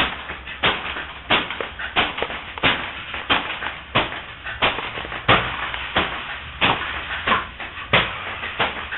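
Scrap-metal robot dancer's MIDI-driven joints and actuators clattering in a steady beat, about three sharp clacks every two seconds, with lighter clicks between them.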